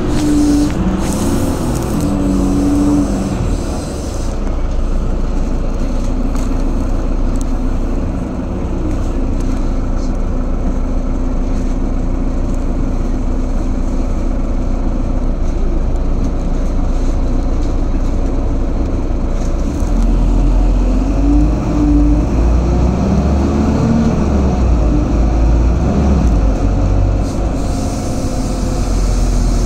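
Steady engine and road rumble heard from inside a moving bus, heavier and deeper about twenty seconds in.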